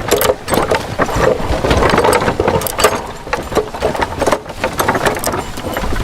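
Small motor of a homemade miniature construction machine running, with irregular clicking and rattling throughout.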